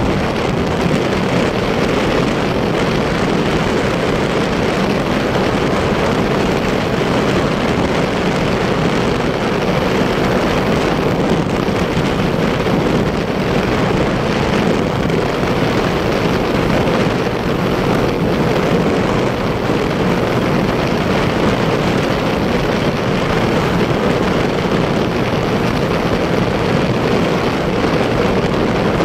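A motorcycle cruising at a steady speed: an even drone of its engine mixed with rushing wind, with no revving or gear changes.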